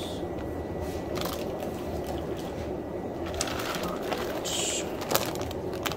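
Steady low background hum with a few brief rustles and light knocks as plastic fish bags are handled and lifted out of a shipping box.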